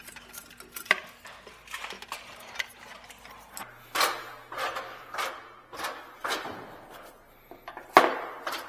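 Scraping and irregular knocks and clinks as the parts of a float-and-thermostatic steam trap are scraped clean of years of buildup. The loudest knock comes near the end.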